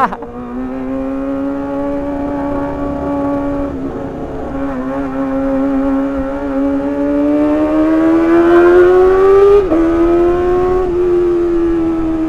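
Kawasaki ZX-25R's inline-four engine running at high revs under way, with wind rumble underneath. The engine note climbs steadily for several seconds, dips sharply about two-thirds of the way through, then holds.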